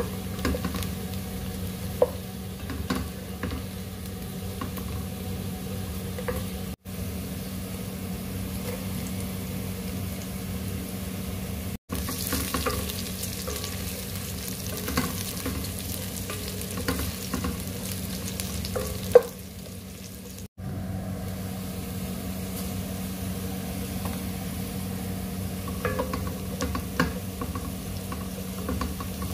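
Food frying and sizzling in a pan while a spatula stirs it, with scattered clicks and scrapes of the utensil on the pan over a steady low hum; a sharper knock about nineteen seconds in is the loudest moment. The sound breaks off briefly three times.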